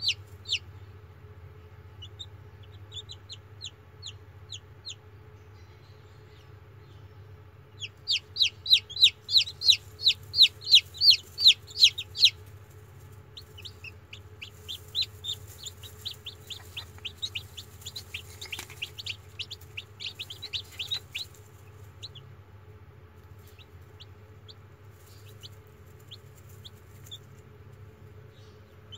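Newly hatched chicks peeping: runs of rapid, high, short peeps, about four to five a second, loudest in a long run a third of the way in and thinning out near the end, over a steady low hum.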